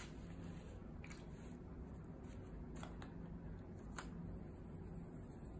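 Faint handling sounds: a paper towel dabbing paint off a plexiglass plate and a watercolor brush working on it, with a few light clicks over a low steady room hum.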